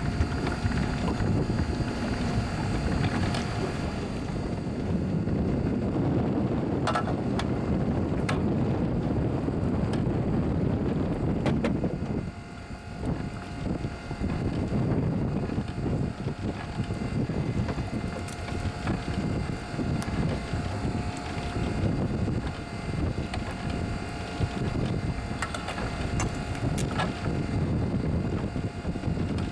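Wind noise on the microphone, with a faint steady whine from a 12 V electric net hauler's motor as it reels in a fishing net, and a few light clicks.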